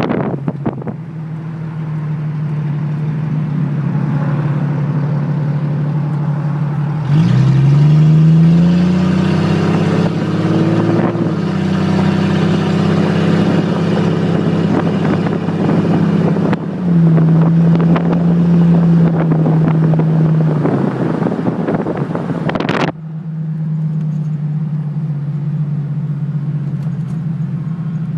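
Jeep Cherokee XJ engine heard through an exhaust with no catalytic converter and no muffler. It runs steadily, revs up sharply about a quarter of the way in and holds higher, dips briefly and comes back up, then falls back to a lower, quieter note after about three quarters of the way through.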